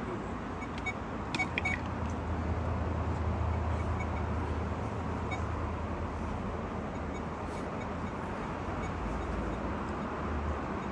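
Steady rushing of river water with a low wind rumble on the microphone, and a few faint, short, high-pitched ticks about a second and a half in.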